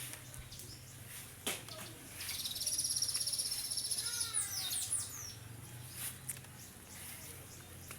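Bird calls: a high, rapid trill lasting about two seconds, then a run of short falling chirps about four seconds in. A single sharp click comes about a second and a half in.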